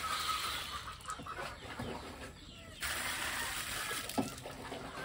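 Water poured from a dipper into a plastic basin of sweet potatoes, in two pours with a short pause about two seconds in, and a knock about four seconds in. Chickens cluck in the background.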